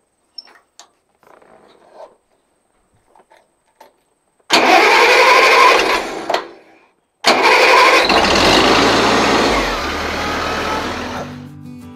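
Small International Harvester tractor engine being started: it cranks for about two seconds, stops, then cranks again and catches, running with a steady low hum before music comes in near the end. Faint paper rustling comes before the starting.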